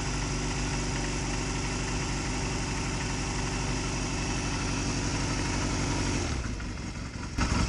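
Honda CMX250C Rebel's air-cooled 234 cc parallel-twin engine idling steadily, run briefly after an oil refill to circulate the fresh oil before the level is checked. About six seconds in the steady note breaks up and turns rougher, and a sharp knock comes near the end.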